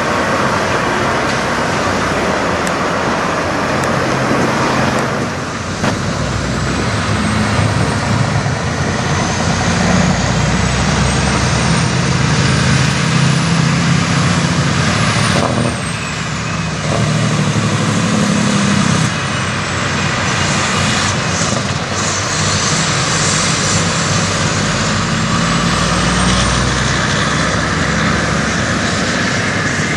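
Diesel engine of a 2003 Freightliner Classic semi truck pulling away and accelerating, its note rising and shifting, with two short dips in loudness.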